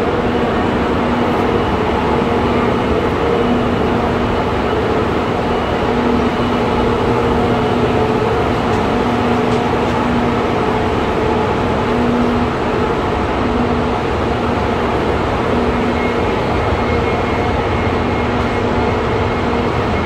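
Train running: a steady rumble with a humming tone that comes and goes.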